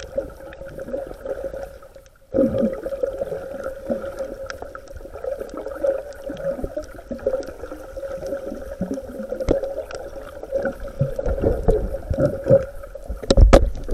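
Water gurgling and bubbling over a steady hum, with a brief dropout about two seconds in and a couple of heavy thumps near the end.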